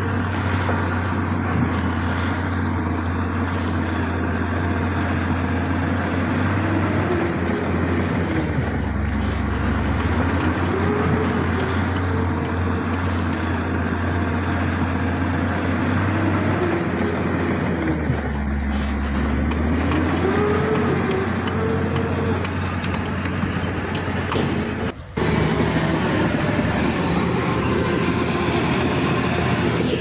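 Heavy diesel engines of a dump truck and a crawler bulldozer running steadily with a deep hum. The engine note rises and falls several times. About 25 seconds in the sound changes abruptly to the bulldozer working.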